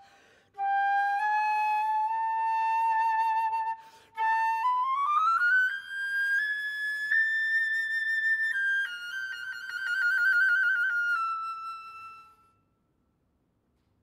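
Solo flute playing a slow melody: held notes, a short break for breath near the start and again near four seconds, then a quick rising run up to a high held note, a fast trill, and a last note that dies away.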